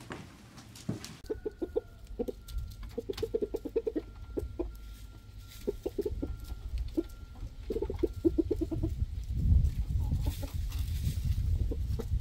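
Domestic hens clucking, in quick bursts of short clucks. A low rumbling noise comes up over the last few seconds.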